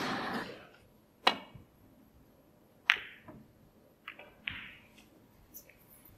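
Snooker shot: the cue tip clicks against the cue ball, and about a second and a half later the cue ball strikes a red with a louder click. Two softer knocks of balls follow a second or so later.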